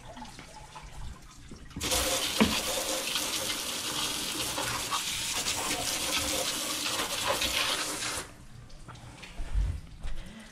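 Garden hose spraying water into a jet ski's engine compartment, rinsing off dish soap. The spray starts about two seconds in and stops about two seconds before the end.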